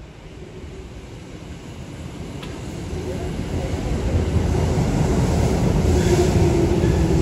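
Electric train approaching the station, its rumble growing steadily louder, with a faint steady tone rising over it in the second half.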